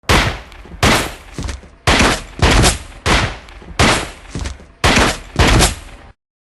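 Movie-style gunshot sound effects: about eight loud single shots at uneven intervals, each with an echoing tail, cut off abruptly near the end.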